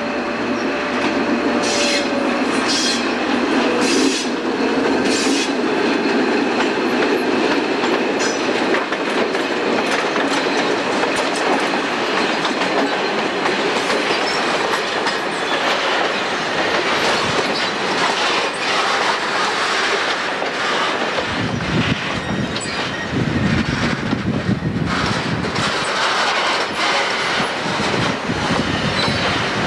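A slow-moving train of covered goods wagons rolling past, its wheels clattering over the rail joints with some squeal, with a few sharp knocks early on. From about twenty seconds in, the engine of the Swedish T44 diesel-electric shunting locomotive is heard as it comes by.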